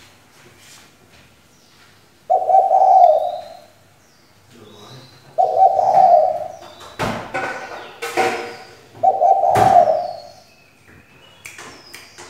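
Female spotted dove cooing, three low coo phrases a few seconds apart. It is a caged decoy hen calling to draw out and excite male spotted doves. A couple of sharp knocks come around the middle, and small birds chirp faintly throughout.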